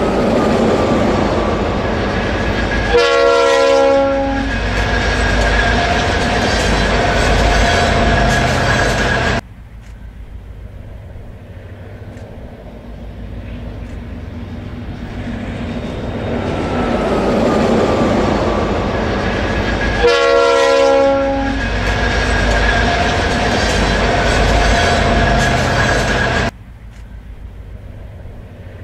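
Diesel freight train passing, with a horn blast of about a second roughly three seconds in and again around twenty seconds in. The train noise drops abruptly about nine seconds in, builds back up, and drops abruptly again near the end.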